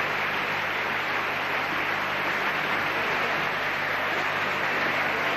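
Opera-house audience applauding steadily.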